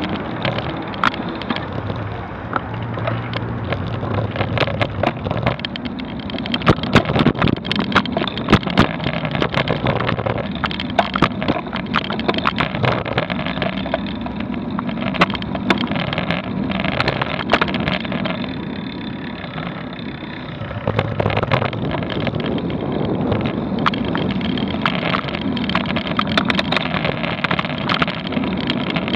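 Rolling road noise picked up by a vehicle-mounted action camera moving slowly along city streets: a steady rumble and hum of traffic, broken by many quick rattling clicks as the mount jolts over the road surface, busiest for several seconds in the first half.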